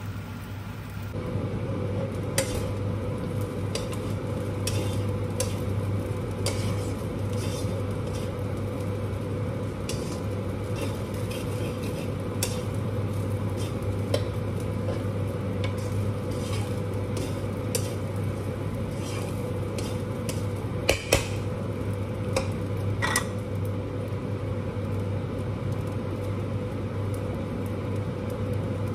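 Fried rice sizzling in a nonstick wok while a spatula scrapes and knocks against the pan now and then, with two sharp knocks close together about two-thirds of the way through. Under it runs a steady mechanical hum, like a kitchen range-hood fan.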